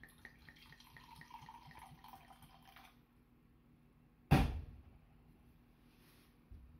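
Red wine poured from a glass bottle into a ceramic mug, a faint liquid pour lasting about three seconds. About four and a half seconds in comes a single sharp knock, the loudest sound, followed by a soft thud near the end.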